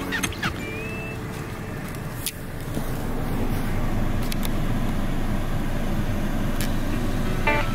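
A car's steady running noise: a low rumble with a few faint clicks, growing louder about two and a half seconds in and then holding steady.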